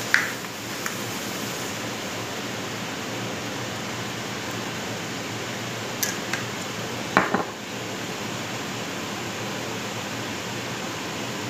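Noisy kitchen exhaust fan running with a steady whoosh. A few sharp clicks and knocks of kitchenware cut through it: one at the start, one about a second in, and two close together about six to seven seconds in.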